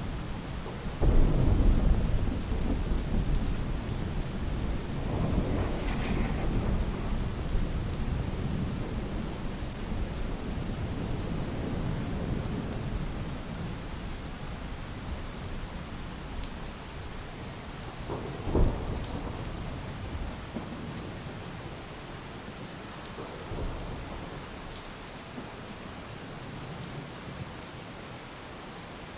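Steady rain with thunder rolling through it: a loud clap about a second in that rumbles on for several seconds, a sharp crack about two-thirds of the way through, and a fainter rumble a few seconds after that.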